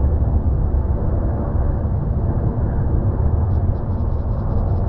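Boeing 777-200ER airliner's jet engines on final approach: a steady deep rumble. A faint rapid ticking comes in near the end.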